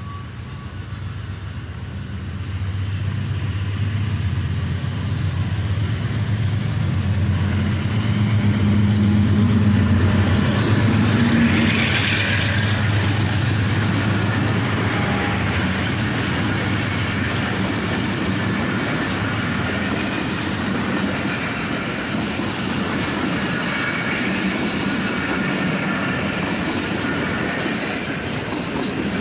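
Pakistan Railways diesel locomotive approaching and passing with its engine running in a low steady hum, growing louder until about twelve seconds in. After it passes, a long rake of passenger coaches rolls by with a steady noise of wheels on rails.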